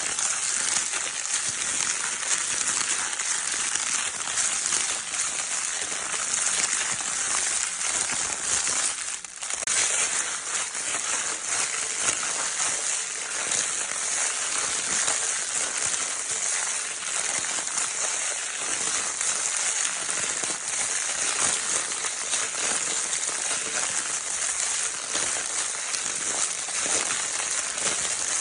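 Crinkle paper baby toy being crinkled without pause, a dense, steady crackling rustle. There is a brief dip in loudness about nine seconds in.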